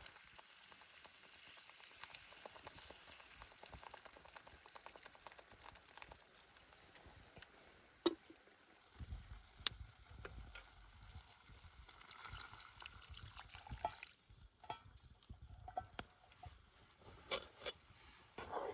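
Food frying in oil in a pan, a soft steady sizzle with a couple of sharp clinks. About halfway through it gives way to a low rumble with scattered knocks and clicks.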